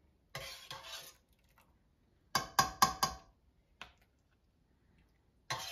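A metal slotted spoon handling canned pineapple at a canning funnel and glass jar: a short scrape, then a quick run of about four clinks with a brief ring about two and a half seconds in, and one faint tap later.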